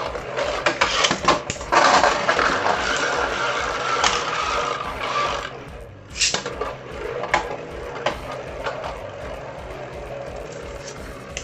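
Beyblade tops spinning and clashing in a plastic stadium: a few seconds of dense scraping clatter with sharp hits, another burst of hits about six seconds in, then a steadier whirr that fades near the end.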